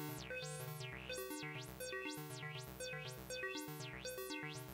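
YM2149F sound chip playing a repeating pattern of notes through an MS-20-style filter. A sine-wave LFO sweeps the filter's cutoff up and down about twice a second, giving a steady wah-like rise and fall in brightness.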